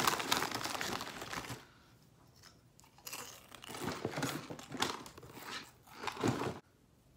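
Close rustling and crinkling handling noise in two stretches, as the wig is pulled and adjusted by hand and items in a box are rummaged through; the second stretch cuts off suddenly near the end.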